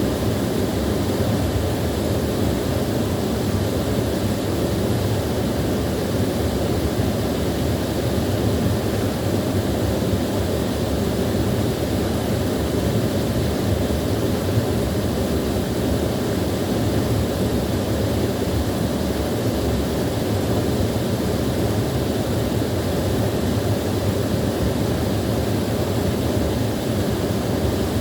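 A small waterfall, its water falling and splashing in a steady, unbroken rush that is strongest in the low range.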